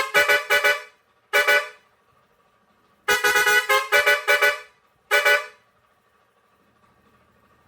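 Pioneairs 632S digital air horn with six steel trumpets playing a melody of short, quick toots that change pitch. A run of notes is followed by one single toot, and the same phrase comes again about three seconds later before the horn stops.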